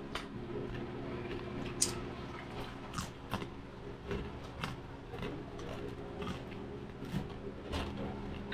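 Crispy pata (deep-fried pork leg) being torn apart by hand: irregular sharp crackles and clicks of the crisp skin and meat, over a low steady hum.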